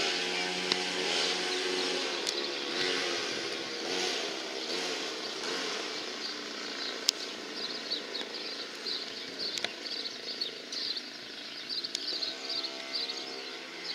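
A motor vehicle engine running, fading over the first half and coming back faintly near the end, while small birds chirp in the later part. A few sharp clicks stand out.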